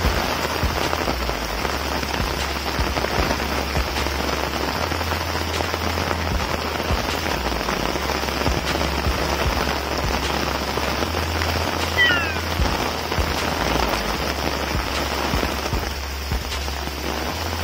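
Steady heavy rain pouring onto a paved street, a constant dense hiss of rain. A short falling chirp cuts through it about twelve seconds in.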